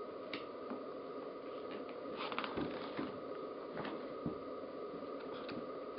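Quiet room tone with a faint steady hum, broken by a few soft clicks and a brief rustle about two seconds in.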